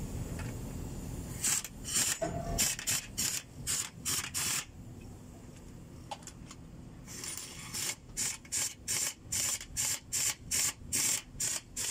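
Hand ratchet clicking in quick back-and-forth strokes while bolts on a truck engine's cylinder head are turned, in two runs of about two to three strokes a second with a short pause between.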